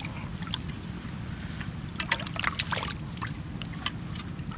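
Water splashing and sloshing in short irregular bursts as a large, slippery sea eel is grabbed at and thrashes in shallow water, over a steady low background rumble.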